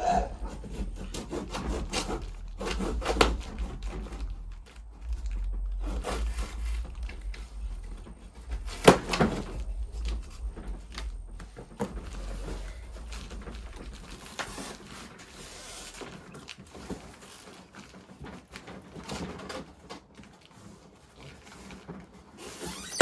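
Scraping, rubbing and knocking as a dog crate is pulled from its box and handled, with a sharp knock about nine seconds in.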